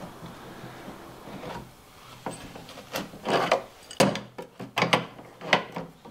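Steel wrenches knocking and scraping on the nut of a metal spout fitting as it is tightened onto a plastic fuel tank. A faint rubbing first, then from about two seconds in a quick run of short, sharp clinks and scrapes.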